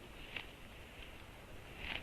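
Black woodpecker at its nest: a sharp tap about a third of a second in, and a brief louder sound near the end, over a faint steady hiss.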